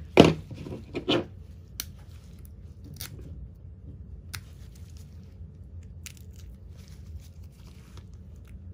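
A scalpel cutting and scraping through the nasal septum's bone and cartilage: scattered short crunching clicks and scrapes, with one louder sharp crack just after the start.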